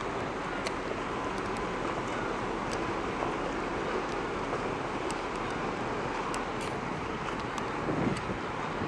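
Shin Nihonkai Ferry's large car ferry Azalea running its engines and propellers as it pulls away from the quay, a steady noisy rumble with a faint steady whine, mixed with wind on the microphone.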